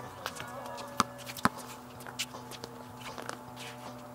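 Basketball game play: two sharp knocks, the ball hitting the floor or backboard, about a second in and half a second apart, amid small squeaks and clicks from the court. A steady hum and faint voices sit under it.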